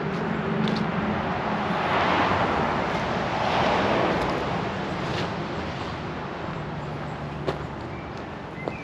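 Road traffic going by: vehicle tyre noise swells twice, about two and four seconds in, then fades away slowly, with a low engine hum underneath.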